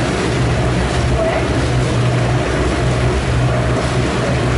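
Passenger river tour boat's engine running with a steady low drone, under an even rushing noise of water along the hull.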